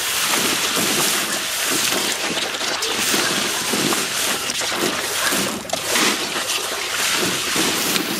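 Garden hose nozzle shooting a jet of water up out of a plastic paddling pool, a steady hiss of spray, with a dog splashing in the water and biting at the jet, making irregular splashes and slaps.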